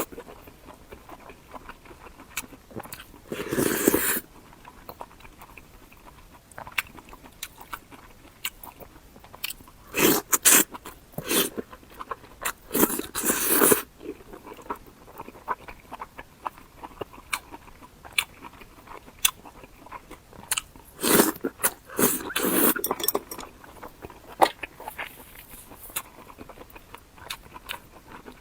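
Close-miked mukbang eating of a fried egg with soup rice: crunchy bites and chewing, with louder bursts of crunching every few seconds and small mouth clicks between.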